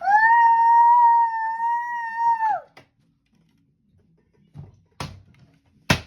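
A young child's long, high-pitched squeal held for about two and a half seconds, dropping in pitch as it ends. A couple of sharp knocks follow near the end.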